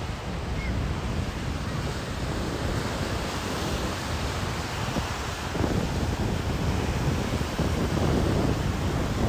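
Ocean surf washing onto a sandy beach, with strong wind rushing over the microphone. The wash of the waves swells louder about halfway through and again near the end.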